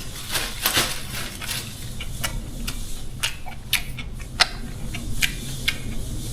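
Eating utensils clicking and scraping against a bowl of rice and stir-fry, a dozen or so irregular light clicks while someone eats, over a steady low rumble.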